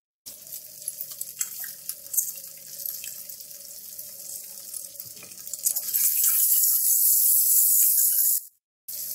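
Hot oil sizzling around turmeric- and chilli-coated boiled eggs frying in a pan, with a few light taps as a silicone spatula turns them. The sizzle grows louder about six seconds in.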